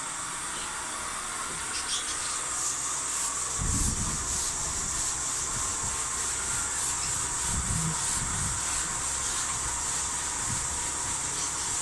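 Steel wool scrubbed back and forth over a wet, greasy stone-chip kitchen wall, a fast run of rasping strokes that starts about two seconds in. The strokes scour off oily grime softened with hot water.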